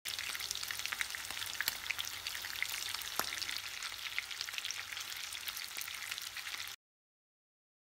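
Oil sizzling and crackling around cızbız köfte (thin meatball patties) shallow-frying in a pan, a steady hiss with scattered pops. It cuts off suddenly near the end.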